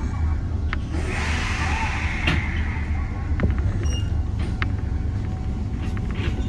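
Inside a stopped Kotoden electric train: a steady low hum from the standing car, with a hiss of compressed air from about a second in to halfway through, and scattered light clicks.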